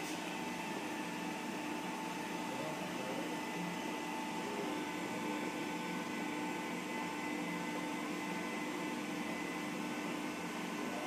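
Motorised chamber door of a hydrogen peroxide plasma sterilizer opening: a steady machine hum with a few held tones.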